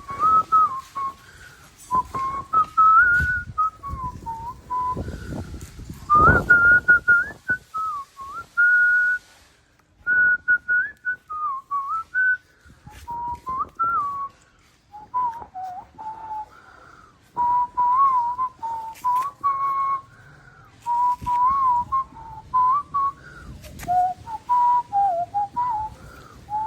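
A person whistling in short, wavering phrases that slide up and down in pitch, in play with a dog. Low knocks and rumbles come under the whistling in the first several seconds.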